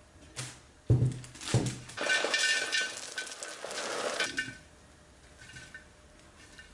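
Ceramic flowerpot being handled: three knocks and thuds in the first second and a half, then about two seconds of scraping with a ringing clink of the ceramic. A fainter clink comes near the end.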